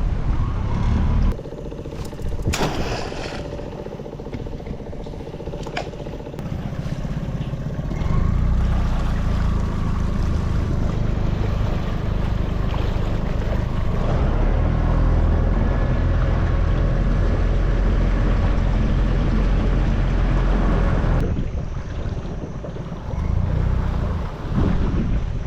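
Small boat's outboard motor running under way, quieter at first, then louder and steady from about a third of the way in, easing off near the end, with wind buffeting the microphone.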